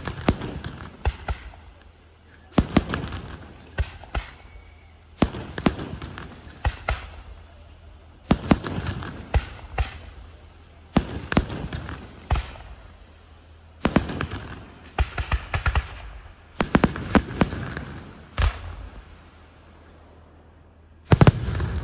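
Aerial firework shells bursting in volleys of several sharp bangs, a new volley about every two to three seconds. Each volley trails off in crackle and echo.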